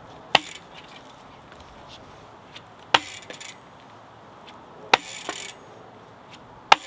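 A mountain-bike wheel with a freshly seated tubeless tire bouncing on the ground four times, about two seconds apart, each sharp thud followed by a brief rustle. The bouncing is meant to spread the sealant and set the bead against the rim.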